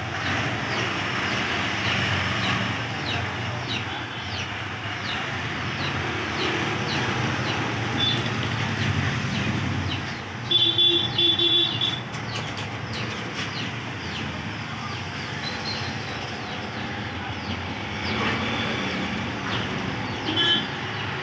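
Steady background ambience of traffic noise with birds chirping. A vehicle horn sounds in a few short toots about halfway through, and once more briefly near the end.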